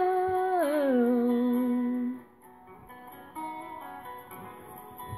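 A woman's voice holds a long sung note that slides down in pitch about a second in and stops about two seconds in; quieter guitar backing music of the song carries on after it.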